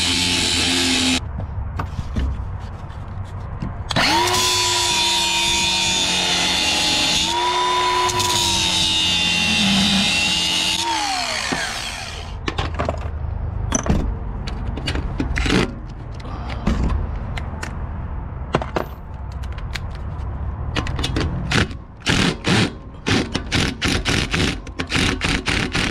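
Corded angle grinder with a cut-off wheel cutting through rusty threaded rod, throwing sparks. It runs in two stretches, the longer one about eight seconds, then winds down. Then come scattered metal knocks and, in the last few seconds, the rapid hammering of a cordless impact tool.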